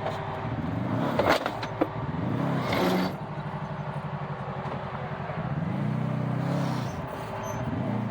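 Side-by-side UTV engine revving up and easing off twice as it works over the trail, with a couple of sharp knocks about a second in.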